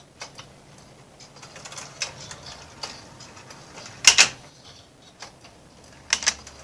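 Motor-driven wooden marble-run automaton running, its mechanism clicking and its marbles clacking as they are lifted and roll down the run. There are two sharp clacks about four seconds in and a double clack near the end.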